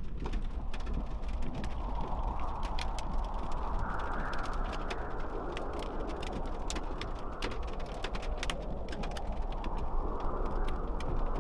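Raindrops ticking irregularly on a vehicle's windshield and body while it drives, over a steady low road rumble and a hiss that swells and fades a few times.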